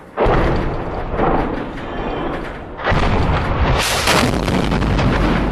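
Two heavy artillery blasts, one just after the start and another about three seconds in, each trailing off into a long, low rumble.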